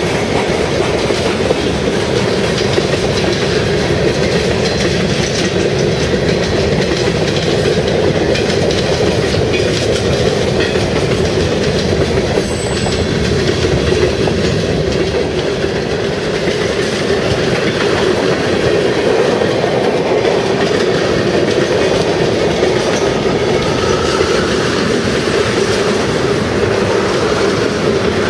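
Train cars rolling steadily past, wheels clicking over the rail joints, loud and continuous.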